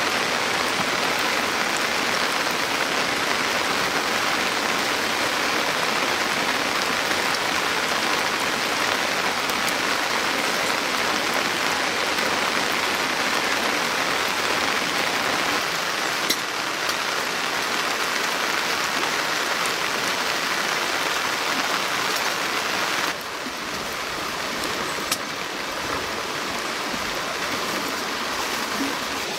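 Steady rain falling, an even rushing patter that drops a little in level suddenly about 23 seconds in.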